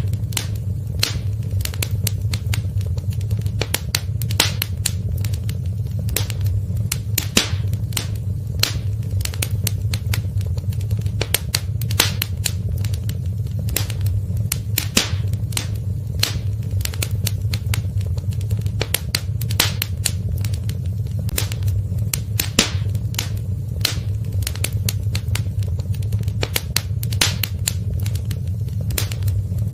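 Wood fire crackling in a fireplace: irregular sharp pops and snaps, several a second, over a steady low rumble.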